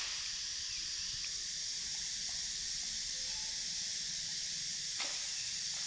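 Steady high-pitched background hiss, with a single faint click about five seconds in.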